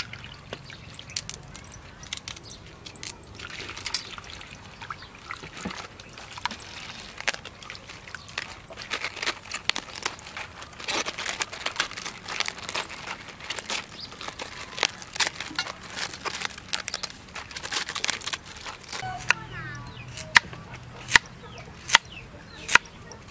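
Leafy vegetables washed by hand in a steel basin of water: splashing, wet leaves rustling and small knocks against the basin. Near the end, a knife chops a carrot on a wooden chopping board, sharp regular chops a little under a second apart.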